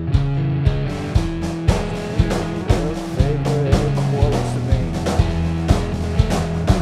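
Rock band playing an instrumental passage: electric guitar over an acrylic drum kit, the drums keeping a steady beat of about two hits a second with cymbals ringing in from about half a second in.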